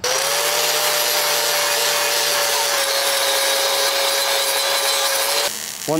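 Electric angle grinder grinding the cut edges of a steel crossmember flush, a steady whine over a harsh grinding hiss. The grinder stops near the end.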